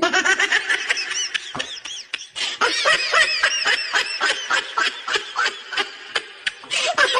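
High-pitched giggling laughter, a quick run of short syllables that each rise and fall in pitch.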